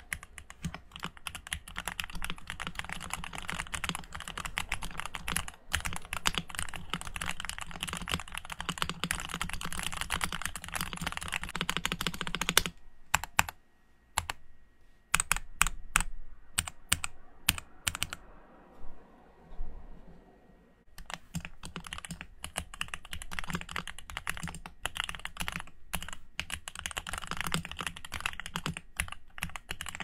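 Fast typing on a custom Bakeneko mechanical keyboard with GMK Red Samurai doubleshot ABS keycaps on JWK JWICK Yellow Pro linear switches, built with PE foam and a tape mod. The rapid run of keystrokes breaks about 13 seconds in into slower, separate strokes with short pauses, then picks up again about 21 seconds in.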